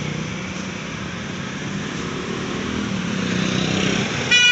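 Street traffic running steadily with engine hum, and a short vehicle horn toot near the end.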